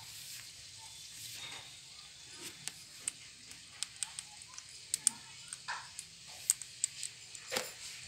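Caged rose-ringed parakeets pecking and feeding: irregular sharp clicks and taps, about two a second, with a few short scrapes.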